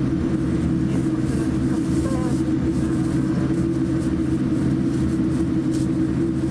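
Cabin noise inside a Boeing 787-9 airliner taxiing: a steady, unchanging drone with a strong low hum.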